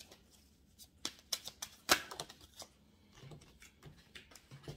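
Oracle cards being handled and drawn from the deck: a run of light clicks and flicks, with one sharper snap about two seconds in.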